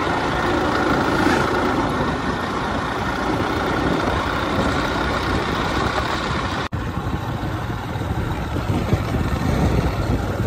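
Motorcycle on the move: steady engine and wind noise from a helmet-mounted phone microphone, briefly cutting out about seven seconds in.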